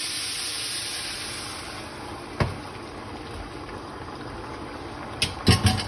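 Lemongrass stock poured into a hot frying pan, hissing and bubbling as it hits the hot pan, the hiss fading over the first two seconds. A sharp knock comes about two and a half seconds in, and a few quick knocks near the end.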